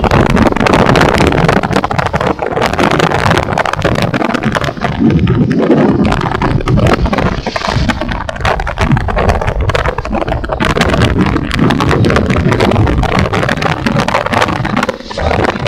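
Wind buffeting and crackling on the microphone of a camera riding on a moving motorcycle, over the bike's engine and road noise.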